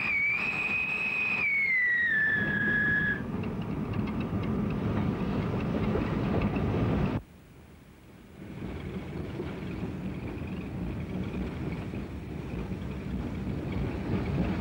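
Steam locomotive whistle blowing one long note that sags in pitch over about three seconds, over the steady rumble of the train running. The rumble drops away for about a second near the middle, then comes back.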